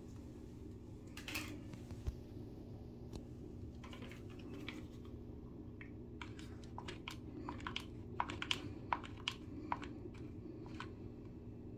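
Hot glue gun being worked at a hole in drywall: a scattering of small sharp clicks and taps, thickest in the second half, over a steady low hum.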